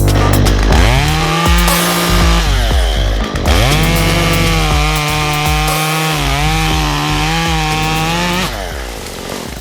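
Chainsaw revving up and cutting into wood in two runs. A shorter cut starts about a second in, then after a brief drop comes a longer, steady cut that winds down about a second before the end.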